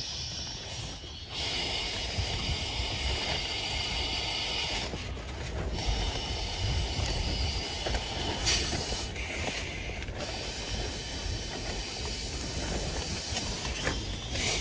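Strong wind gusting across open grassland, buffeting the microphone with a low rumble under a steady hiss that falls away briefly a few times.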